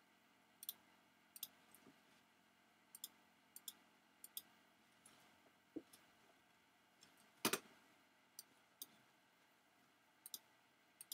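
Faint computer mouse clicks, scattered and often in quick pairs, as materials are clicked onto the stones one after another. One louder knock comes about seven and a half seconds in.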